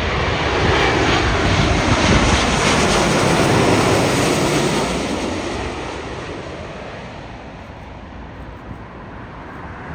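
Large jet airliner passing close by on landing, a loud rushing jet-engine noise that fades away after about five seconds as the aircraft moves off.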